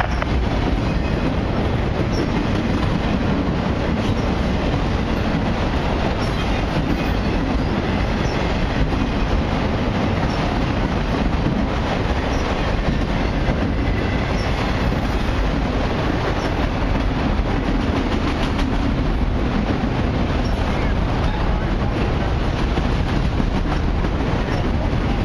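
Long freight train of autoracks and mixed freight cars rolling past: a steady rumble of steel wheels on rail, with light clicks from the wheels crossing rail joints.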